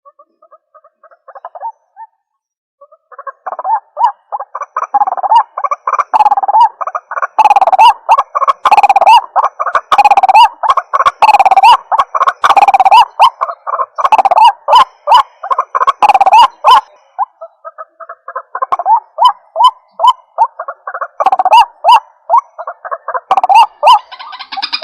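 White-breasted waterhen (ruak-ruak) calling: loud, fast, repeated croaking notes. They start as a few scattered calls, build into a dense continuous run, break off briefly about two-thirds of the way through, then resume.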